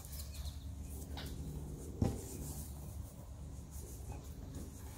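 Soft rustling of satin fabric being gathered and handled by hand, over a low steady hum, with one light knock about two seconds in.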